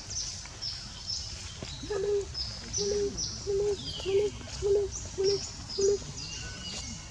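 A bird gives a series of about seven low, evenly spaced hooting notes, roughly one every half second, over the high chirping of small birds in the forest.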